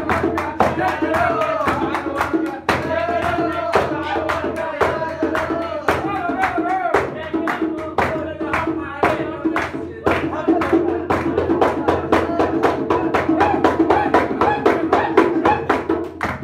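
A man's voice singing a wavering, ornamented melody, backed by a hand drum and hand claps beating a quick, steady rhythm of about four to five strokes a second.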